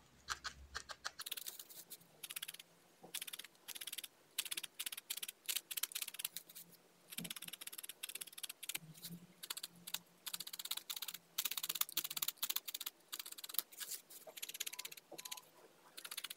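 Felting needle stabbing rapidly into wool over a foam pad: quick sharp pokes, several a second, in runs broken by brief pauses.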